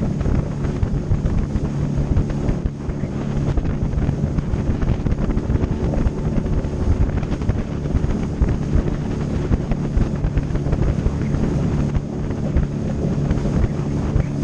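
Suzuki DF20A four-stroke outboard motor running steadily at cruising speed, pushing a small aluminium boat, with wind buffeting the microphone.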